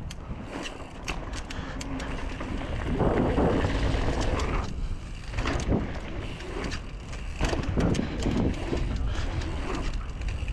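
Mountain bike being ridden fast down a dirt trail: tyres rolling on dirt, with scattered knocks and rattles from the bike and wind buffeting the microphone. It gets louder over the first few seconds.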